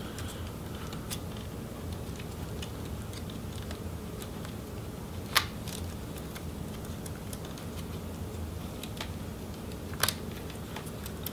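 Light clicks and taps of a screwdriver and fingers working display cables and antenna wires loose inside an open Lenovo ThinkPad T470, over a steady low hum. Two sharper clicks, about five and ten seconds in.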